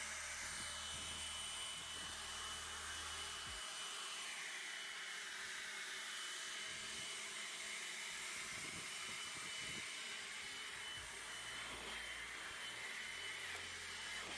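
Leaf blower running steadily, blowing snow off: a rushing hiss with a thin, steady high whine.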